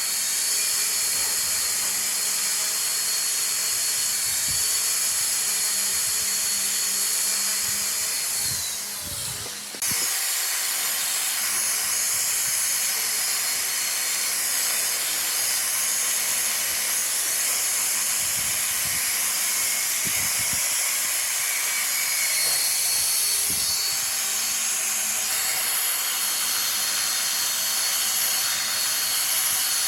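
Wood lathe running, a steady high-pitched motor whine over the hiss of a tool or abrasive on the spinning wood. About nine seconds in, the whine falls as the lathe slows, then the full sound cuts back in abruptly.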